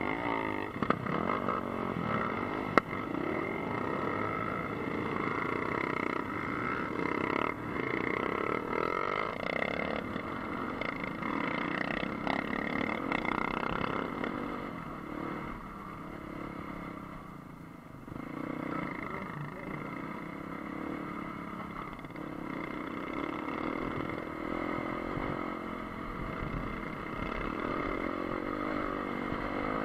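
Dirt bike engines running as the group pulls away, then the rider's own dirt bike engine rising and falling in pitch as it rides along a dirt track, heard from a helmet camera. Two sharp knocks stand out in the first few seconds.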